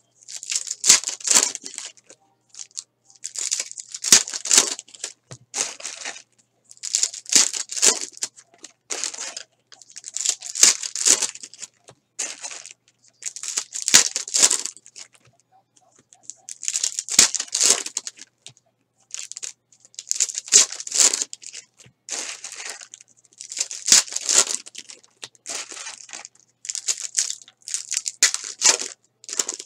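Foil wrappers of Panini Prizm basketball retail card packs being torn open and crinkled by hand, in short crackling bursts every two to three seconds.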